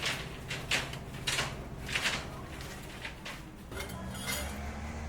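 Repeated scraping strokes, roughly two a second, that die away about four seconds in, followed by a steady low hum.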